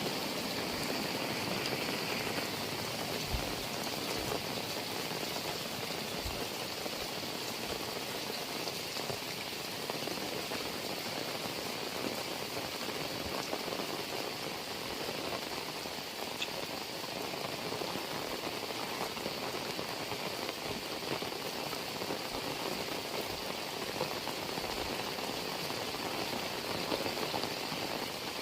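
Heavy rain falling steadily, an even rushing hiss of drops on surfaces with no let-up.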